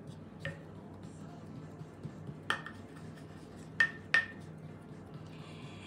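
Wooden spoon knocking against the rim of a ceramic baking dish four times, short clinks each with a brief ring, while pressing and smoothing a layer of halva in the dish. The last two knocks come close together, about three and four seconds in.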